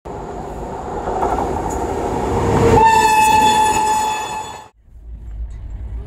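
Rumble of a train running on rails. About three seconds in, a WAP7 electric locomotive's air horn sounds one steady single-note blast for about two seconds, then cuts off suddenly. A low rumble follows.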